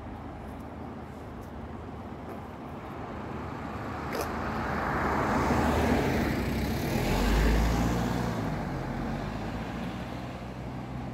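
A motor vehicle passing by: road noise swells over several seconds to a peak about six to seven seconds in, with a low engine hum near the peak, then fades away.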